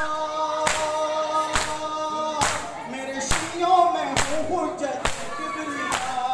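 Matam: a crowd of mourners striking their bare chests with open palms in unison, one sharp beat a little under every second, under a held, sung note of a nauha.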